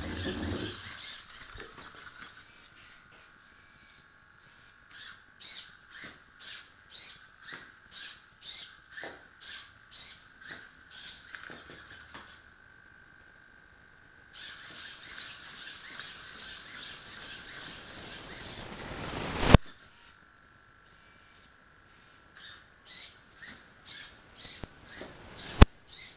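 Hobby servos of a homemade six-legged walking robot whining steadily as the legs step, with the feet tapping the tile floor about twice a second. Everything stops for about two seconds midway while the robot stands still, then the stepping resumes, with two sharp clicks in the second half.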